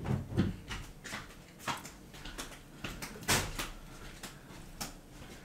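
Light, irregular clicks and knocks of kitchen dishes and cutlery being handled, with one louder knock about three seconds in.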